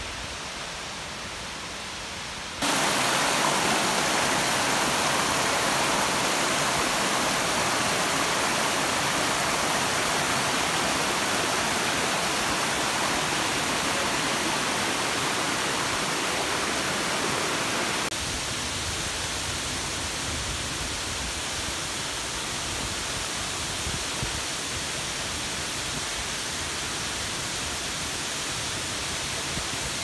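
Waterfall rushing as a steady hiss. It jumps louder and brighter about three seconds in, then drops to a softer, deeper rush about eighteen seconds in.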